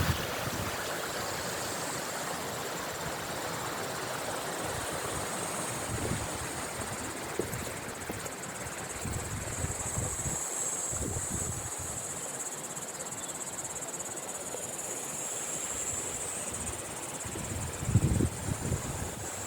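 Insects chirring steadily in one high band, strongest in the middle stretch, over a rushing outdoor noise with a few low knocks.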